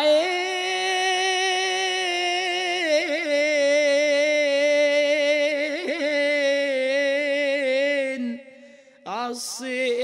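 A man's solo voice singing an unaccompanied Islamic ibtihal, drawing one word out into long, ornamented, wavering melismatic notes. He breaks off about eight seconds in and comes back in a second later with a rising glide.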